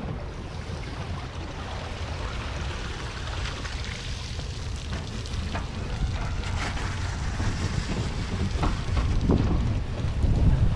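Wind noise on the microphone and road rumble from a bass boat being towed on its trailer, growing gradually louder toward the end as the tow picks up speed.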